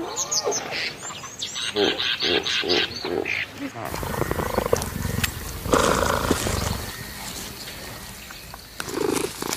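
Cheetahs vocalising while feeding on a fresh waterbuck kill: a run of short pitched calls, then rougher growling calls from about five seconds in and again near the end.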